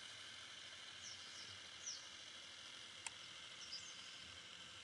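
Faint outdoor ambience: a steady hiss with a few short, high chirps that fall in pitch, and one sharp click about three seconds in.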